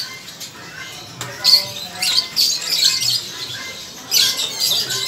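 Caged birds squawking and chirping in shrill, scratchy bursts about a second long, three times.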